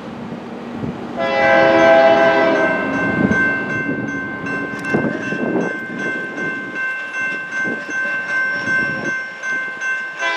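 Norfolk Southern GE ES40DC locomotive's horn sounding a loud chord for the grade crossing about a second in, its notes held on and sounding again at the very end, with the crossing signal bell ringing in a steady rhythm as the gates lower.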